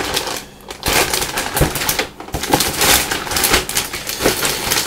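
Clear plastic Ziploc bag crinkling and rustling as it is handled in the hands, a dense run of irregular crackles with short lulls about half a second in and about two seconds in.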